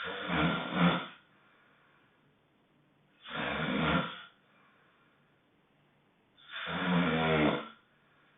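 Honking snoring: three snores, each about a second long, coming about every three seconds with quiet breathing pauses between them.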